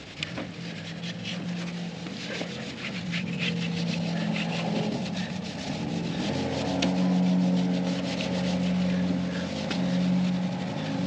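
A cloth rag rubbing and wiping over the painted tailgate of a 1977 Ford F250 pickup, working in a patina-preserver polish with repeated short strokes. A low steady hum runs underneath and grows louder and slightly higher about six seconds in.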